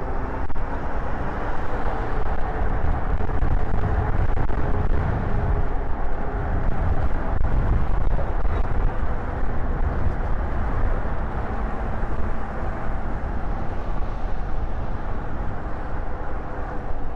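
Wind buffeting the microphone while riding an electric bike, a steady low rumble with road and tyre noise, and a faint hum at the start and again near the end.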